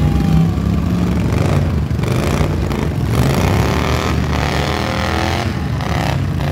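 Several riding lawn mower engines running and revving together, their pitch rising and falling as the mowers push against one another.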